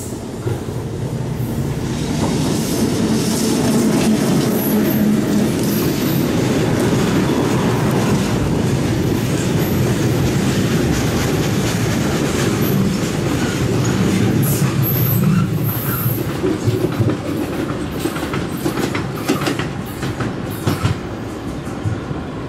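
Loaded coal train of open hopper wagons rolling past on the rails, a heavy rumble that builds over the first few seconds. The wheels clatter over the track, with a few brief high squeals in the middle and sharper clicks near the end as the last wagons go by.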